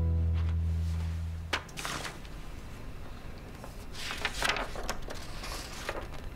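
A guitar-and-bass music cue holds a low chord and stops about a second and a half in. A sharp knock follows, then soft rustling as a sheet of paper is handled.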